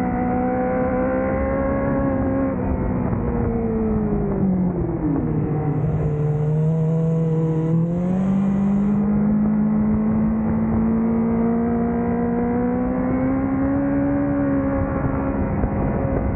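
Honda CBR1000RR-R Fireblade's inline-four engine running hard on track. Its pitch falls around four to five seconds in, stays low for a few seconds, then climbs again from about eight seconds in and holds a high note.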